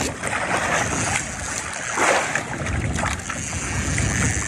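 Choppy waves slapping and splashing against a small wooden outrigger boat's hull and outrigger float, with wind buffeting the microphone; a bigger splash comes about two seconds in.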